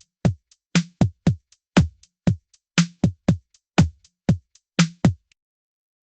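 Electronic drum-machine beat: deep kick drums whose pitch drops after each hit, with lighter drum hits and faint hi-hat-like ticks between them in a steady rhythm. The pattern stops about five seconds in.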